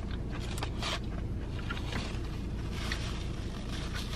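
Paper food wrapper crinkling and rustling in hands, in two short spells about half a second in and again around three seconds in. Under it runs a steady low hum inside a parked car's cabin.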